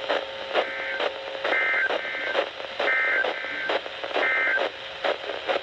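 Emergency Alert System digital data bursts (SAME tones) received over the radio: several short, buzzy two-tone bursts, about every second and a half, through crackling radio static and interference.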